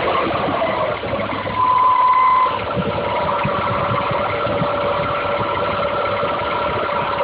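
Audi A4 1.8T (AEB) engine running with a whining tone over it. The whine shifts pitch about two and a half seconds in, then holds steady. It is a strange noise that the owner cannot locate and that appears whenever it is freezing outside.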